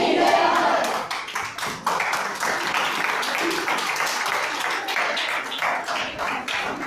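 A group of voices shouting together at the start, then a crowd clapping and applauding steadily.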